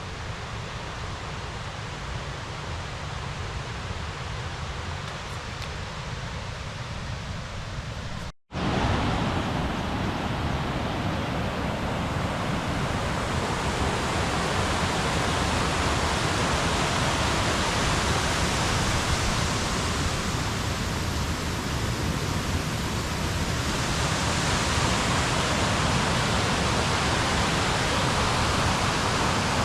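Rushing water of a mountain stream: a steady, even rush. It cuts out briefly about eight seconds in and comes back louder.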